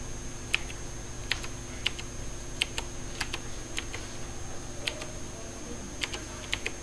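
Computer keyboard keys pressed one at a time at a slow, uneven pace, about ten separate keystrokes, with a faint steady high-pitched whine behind them.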